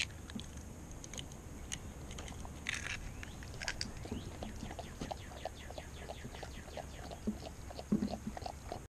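Siberian husky lapping a raw egg out of a glass measuring cup: quick, even wet licks at about four to five a second, with a few louder knocks near the end.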